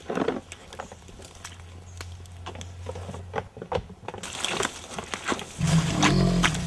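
Rustling and crackling of leaves and twigs in forest undergrowth, with scattered sharp snaps. Music comes in over the last couple of seconds.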